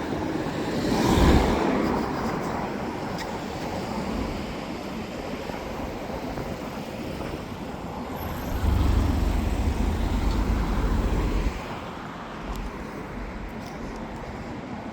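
Road traffic: a vehicle passes close about a second in, and a low rumble runs from about eight and a half seconds to eleven and a half seconds, then stops suddenly.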